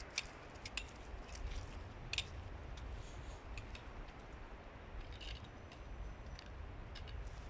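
Hooded crow pecking at a chicken egg on snow: a few sharp ticks of beak on shell, most of them in the first two seconds and a couple more near the end, over a low steady rumble.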